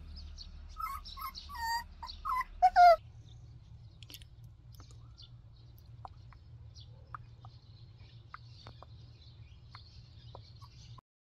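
A puppy whining in a run of short, high-pitched yips that glide up and down, the loudest at the end of the run about three seconds in. After that there are only faint scattered ticks and a soft outdoor hiss.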